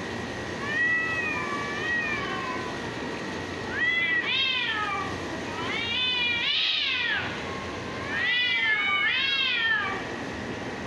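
Domestic cats in a standoff yowling at each other with threat calls before a fight. There are four drawn-out, wavering yowls that rise and fall in pitch, getting louder and more insistent in the second half.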